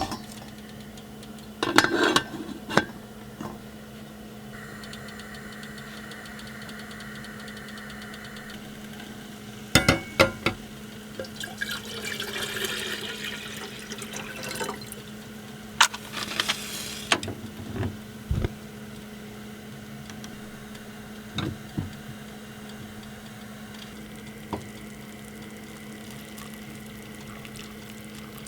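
Pots and utensils clinking and knocking now and then during cooking, over a steady low hum, with a short hissing noise about halfway through.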